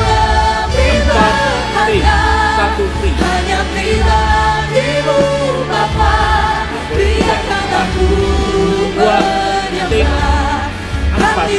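Church worship band playing a slow praise song, with a lead singer and backing vocals singing over a steady bass.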